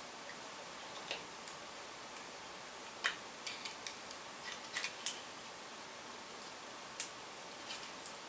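Small sharp plastic clicks and taps from a model railway locomotive being handled, its body and chassis worked apart and fitted together: a few scattered clicks, the clearest about three, five and seven seconds in, over a faint room hiss.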